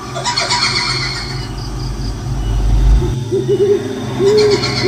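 Layered kuntilanak ghost horror sound effect: a low rumbling drone swells and cuts off suddenly about three seconds in, with shrill high trilling near the start and again near the end. Owl-like hoots come in near the end.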